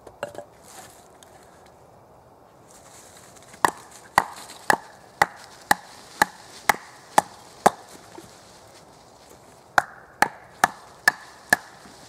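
A hand-made wooden club (Klopfholz) knocking steadily, about two blows a second, to split a thick birch trunk section into quarters. A run of about ten knocks, a short pause, then five more near the end.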